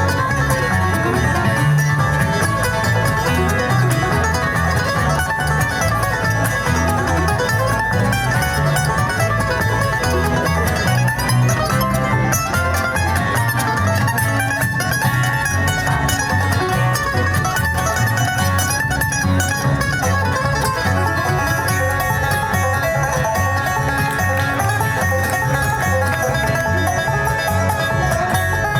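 Bluegrass band playing, with banjo picking over guitar, in a steady unbroken passage with no singing.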